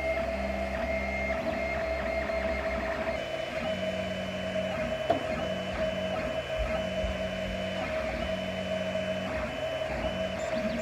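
3D printer running, its stepper motors whining in steady tones that start and stop as the axes move, with one sharp click about five seconds in.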